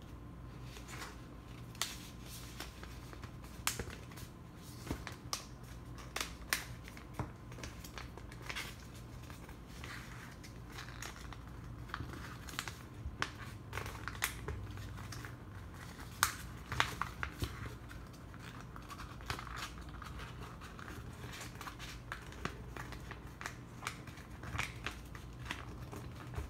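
White paper being folded and creased by hand on a tabletop: irregular rustling and crinkling, with short sharp clicks and taps as fingers press down the folds.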